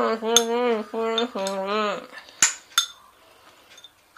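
A woman's muffled, closed-mouth humming of words through tape over her mouth, in a few short phrases, with a spoon clinking against a glass bowl. The clinks are sharp, and the two loudest come just after the humming stops.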